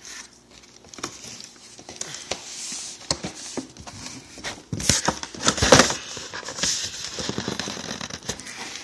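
Cardboard packaging being torn and handled: scattered crackles and rustles, with the loudest tearing about five to six seconds in.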